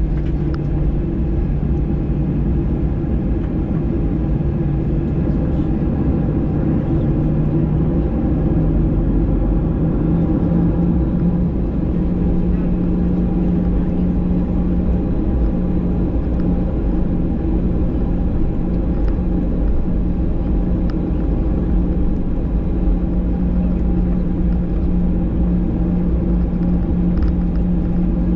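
Cabin noise of a Boeing 737-800: its CFM56-7B jet engines running with a steady loud rumble and hum. The hum steps up in pitch twice, about 8 and 12 seconds in, as the engines spool up.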